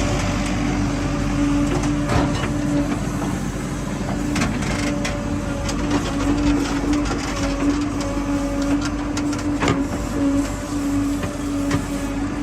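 Diesel engine of a JCB 3DX backhoe loader running steadily under work, with a few sharp knocks and clanks.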